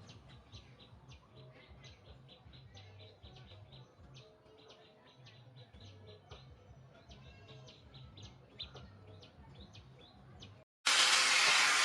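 Small birds chirping, many short chirps about three a second, faint over a low hum. Near the end the sound cuts out for an instant and a loud, steady hissing rush takes over.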